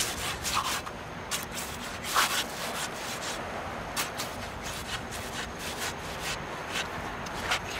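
Steady hiss with scattered, irregular sharp clicks and crackles, the loudest about two seconds in, typical of the worn soundtrack of an old film.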